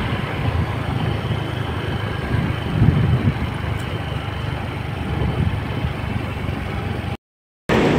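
Steady low rumble of a road vehicle running, engine and road noise with no distinct events. The sound drops out completely for about half a second near the end.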